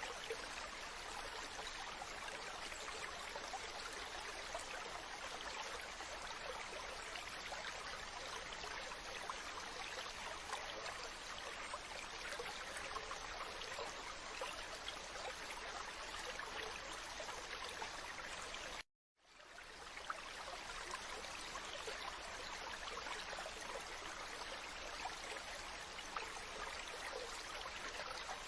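Steady wash of ocean water, an even rushing with no distinct waves. About 19 seconds in it cuts out to silence for a moment, then fades back in: an edit or loop point in the track.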